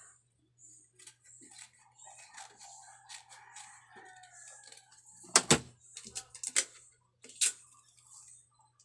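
Hands working paper and sticky tape: soft scratchy rustles, then a cluster of sharp clicks and crackles from about five to seven and a half seconds in, the loudest part. A rooster crows faintly in the background a couple of seconds in.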